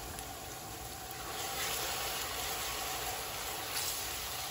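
Blended garlic, onion and pepper seasoning paste sizzling in hot oil with frying onions, being stirred in a large aluminium pot. The sizzle grows louder about a second and a half in.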